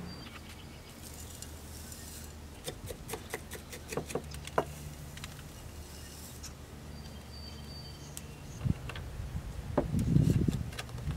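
Gritty bonsai soil mix of Turface, pine bark and diatomaceous earth being spooned into a terracotta pot around a seedling, making a run of small clicks and rattles as the grains fall. Near the end comes a louder rustle as the soil is worked down around the roots. A low steady hum runs underneath.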